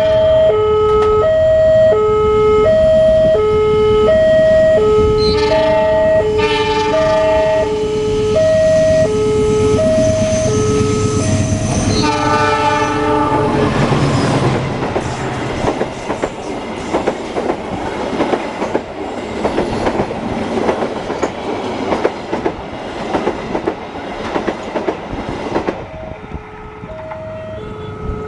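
Railroad crossing warning alarm sounding its alternating two-tone signal, with a locomotive horn blowing about six and twelve seconds in. A train then passes over the crossing with rapid wheel clatter for about twelve seconds, and the two-tone alarm is heard again near the end.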